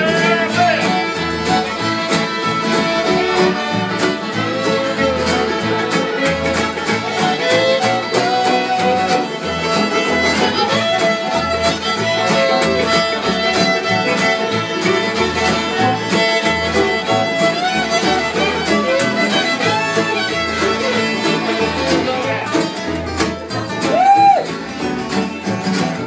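Acoustic string band playing an instrumental tune: two fiddles lead the melody over banjo, guitars and mandolin, with an upright bass keeping a steady beat underneath.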